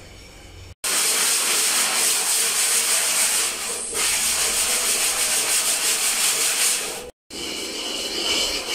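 Hand-sanding a plastered wall: an abrasive block rubbed back and forth over the plaster in fast, steady scraping strokes, starting about a second in. Near the end the rubbing is done with a piece of aerated-concrete foam block used in place of sandpaper.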